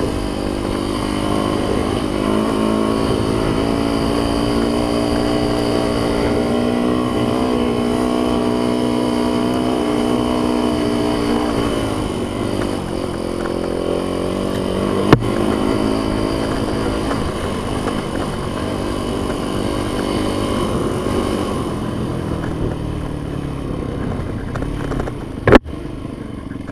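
Yamaha YZ dirt bike engine running at a steady pitch while being ridden, easing off about halfway through. There is a sharp knock shortly after, and a louder sharp knock near the end.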